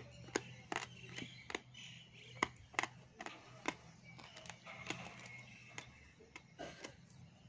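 Dry edible clay (butter grey) crunching between the teeth as it is chewed close to the microphone: sharp, irregular crunches about two a second, over a faint steady low hum.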